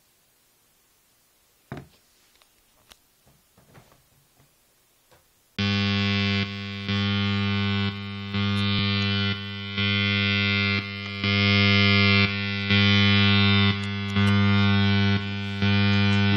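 Mountainking Electronics Channel Chief, a two-oscillator electronic noise box, sounding a buzzy, distorted drone at one steady pitch that pulses in level about every second and a half. It starts about five and a half seconds in, after a few faint clicks.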